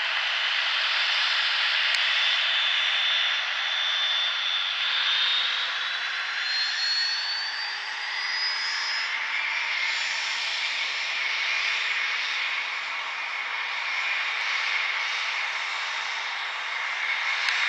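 The twin Williams FJ44 turbofan engines of a Cessna Citation CJ2 business jet run as it rolls out after landing, a steady jet hiss. A high whine climbs in pitch for a few seconds midway.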